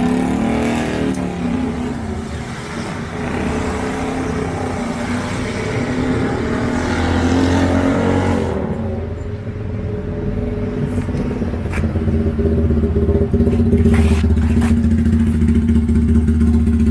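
Motorcycle engines running at idle, a steady low engine note that is loudest over the last few seconds.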